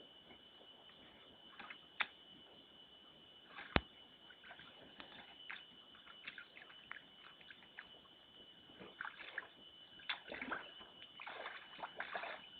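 A bear sloshing and splashing water as it works at a water-filled hole holding its food. Scattered sharp knocks come through, the two loudest in the first four seconds, and the sloshing grows busier in the last few seconds over a steady high tone.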